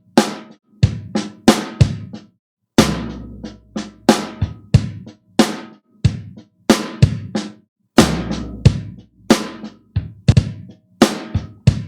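Drum-kit sounds from an electronic keyboard: kick, snare and cymbal hits in an uneven rhythm, about two to three a second, each dying away quickly to silence.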